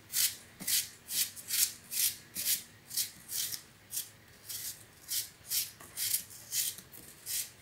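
Small paring knife slicing thin pieces off a peeled Fuji apple held in the hand, a short crisp cut about twice a second.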